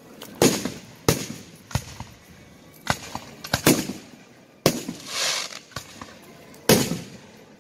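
Aerial firework shells launching and bursting: a string of about eight sharp, irregularly spaced bangs, each with an echoing tail, and a longer hissing rush about five seconds in.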